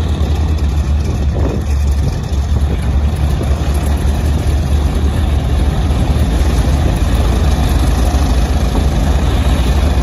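Radial engine of a T-6 Texan–type trainer idling on the ground with its propeller turning: a steady, loud, low engine note.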